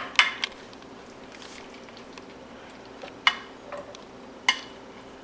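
A few sharp knocks against a frying pan as meat is crumbled into it: three in quick succession, then single ones about three and four and a half seconds in, over a steady faint hum.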